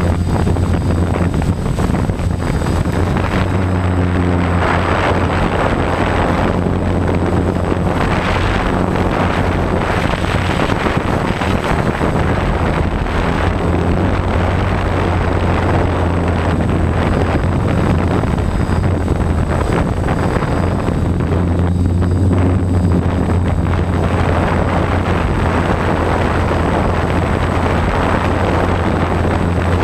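DJI F550 hexacopter's six electric motors and propellers buzzing steadily in flight, heard from a camera on the craft, the hum shifting a little in pitch as the throttle changes, with rushing propeller wash and wind on the microphone.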